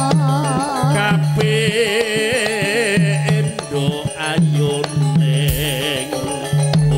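Live campursari band playing a Javanese song: a woman sings a melody with heavy vibrato over a steady, repeating low bass beat.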